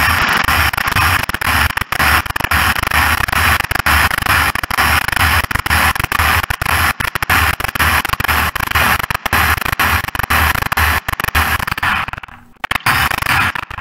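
A small electric kitchen appliance motor running loudly with a harsh whirring noise. It cuts out about twelve seconds in, then starts again near the end.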